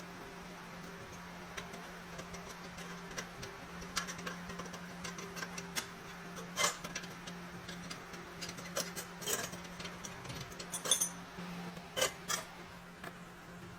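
Irregular light metallic clicks and taps, as of small metal parts being handled and fitted by hand, growing busier partway through, over a steady low hum.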